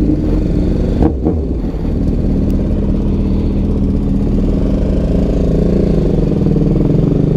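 Sport motorcycle engine running steadily while riding slowly over a rough dirt road, with a couple of sharp clacks about a second in.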